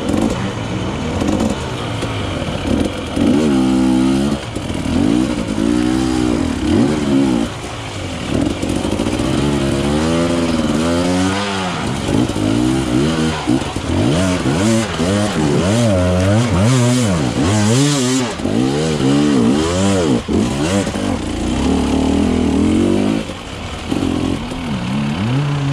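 Off-road dirt bike engine revving up and down over and over, its pitch rising and falling in quick throttle bursts with short lulls between them, as it is ridden over rough, muddy ground.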